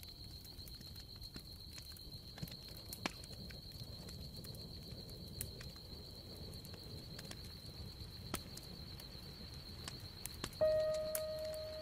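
Faint hiss with a steady high-pitched whine and scattered faint clicks. Near the end, a single sustained musical note starts and slowly fades as background music comes in.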